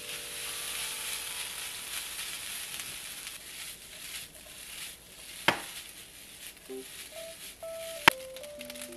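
Fried rice sizzling in a nonstick frying pan on an electric stove, stirred with a spatula and tossed. The sizzle thins about halfway through, and there are two sharp knocks of the pan on the stovetop, about five and a half and eight seconds in.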